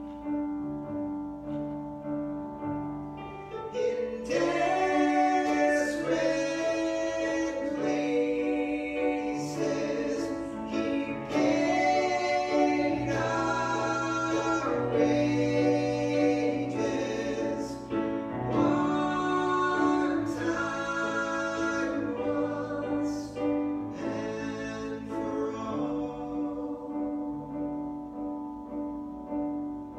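A song sung with piano-style keyboard accompaniment. The voice comes in about four seconds in and drops out near the end while the keyboard plays on.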